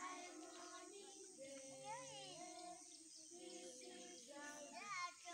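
Children's voices singing a melody, faint, with long held notes that slide between pitches.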